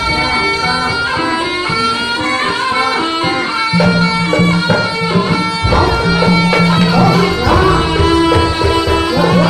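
Live East Javanese traditional music for a barong dance: a reedy wind instrument plays a melody over drums and sustained pitched percussion.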